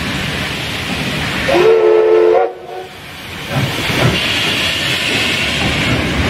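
Steam locomotive hissing steam, with one short steam whistle blast about a second and a half in, the loudest sound. The hiss drops away abruptly after the whistle and builds back up about a second later.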